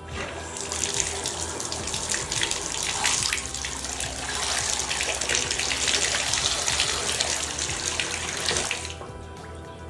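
Water running hard from the tub spout of a Delta 1600-series tub/shower faucet into the bathtub, as its flow is tested after a new cartridge and seats are fitted. The water comes on just after the start and is shut off near the end.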